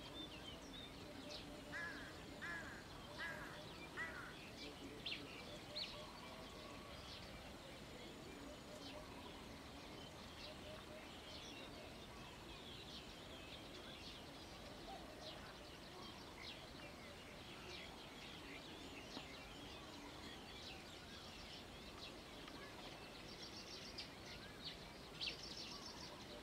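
Faint outdoor field ambience with many small birds chirping. About two seconds in, a bird gives four short calls in a row, and a high trill comes near the end.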